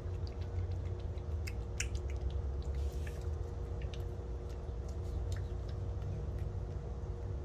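A kitten licking and smacking at a squeeze-tube cat treat, heard as scattered small wet clicks through the first two-thirds, with a brief rustle about three seconds in, over a steady low hum.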